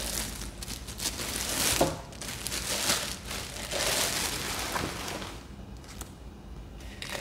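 Packaging crinkling and rustling as an electric milk frother is unwrapped by hand, with scattered sharper crackles, dying down to faint handling clicks from about five seconds in.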